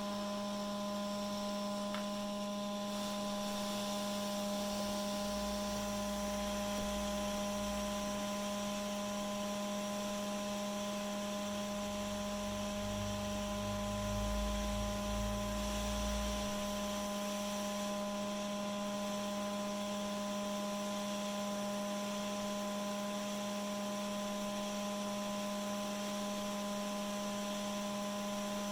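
Steady electrical mains hum with a few fainter higher steady tones over a light hiss; a low rumble comes in twice around the middle.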